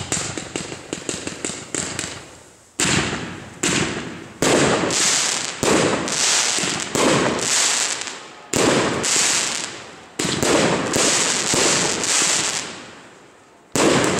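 Class 2 consumer firework cakes firing. A quick run of small pops for the first couple of seconds, then a string of loud bursts about one a second, each dying away over roughly a second before the next.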